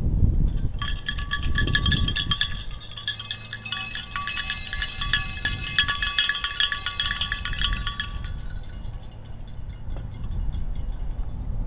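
Bells shaken rapidly, a bright metallic jingling that starts about a second in and stops abruptly about eight seconds in, lingering faintly after, over wind rumble on the microphone.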